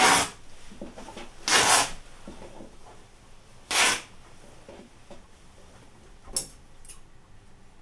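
Scissors cutting through fabric: three long rasping snips about two seconds apart, then two fainter ones near the end.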